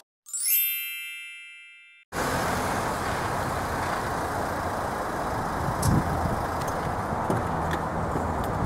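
A single bright chime rings out and fades over about two seconds. It is followed by a steady outdoor background hiss with a few dull knocks and faint clicks near the end as a man gets out of a van.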